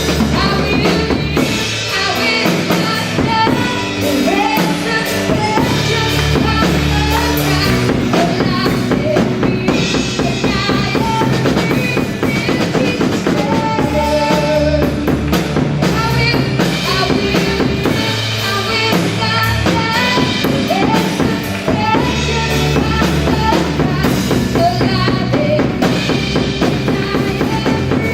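Live gospel worship band playing: a drum kit with bass drum and snare hits driving a steady beat, under bass guitar and keyboard.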